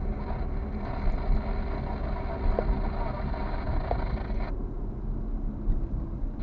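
Steady road noise of a car driving, heard from inside the cabin: a low engine and tyre rumble with a hiss above it that drops away abruptly about four and a half seconds in.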